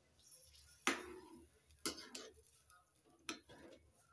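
A steel spatula knocking against the side of a metal kadhai three times, about a second apart, while stirring thick spinach purée frying in oil.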